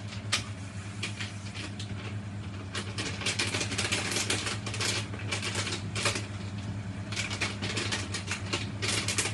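Irregular rustling and crackling as seasoning is shaken from a packet into a pot of mussels on a gas stove, over a steady low hum.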